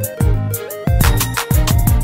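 Background music with a steady beat: deep kick-drum hits with a falling pitch about twice a second, sharp percussion hits and a bass line.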